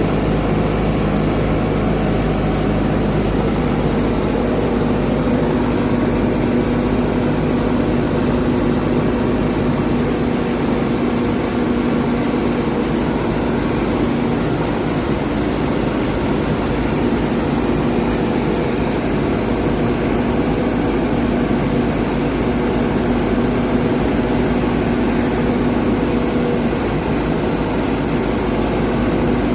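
Backhoe loader's diesel engine running steadily, with a high thin whine that comes in about ten seconds in and continues.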